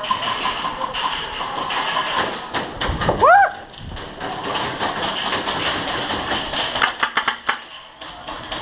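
Airsoft guns firing indoors, a run of sharp cracks and taps with a quick cluster of shots near the end. About three seconds in there is a short, loud, rising shout.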